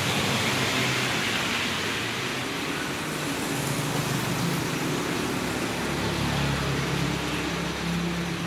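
Steady rain falling on a wet road, with a motorcycle engine humming as it comes up the road and passes. Its low rumble is loudest over the last two or three seconds.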